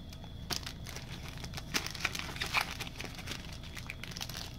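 Empty trading-card pack wrappers crinkling and rustling as they are gathered up, with scattered light taps, busiest around the middle.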